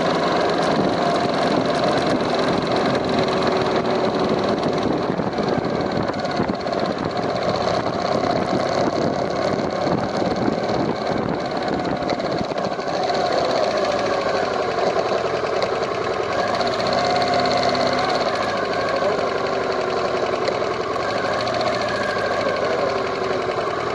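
2015 BMW R1200GS LC boxer-twin engine running steadily with a fast ticking knock from the cylinder head. It is an abnormal noise that replacing the part first blamed did not cure.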